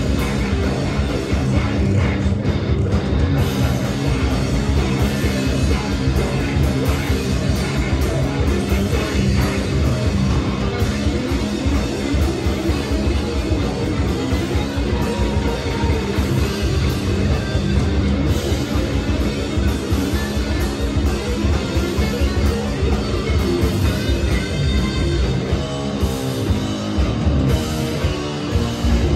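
Live rock band playing loud: electric guitar, bass guitar and a drum kit, with a vocalist singing into a handheld microphone.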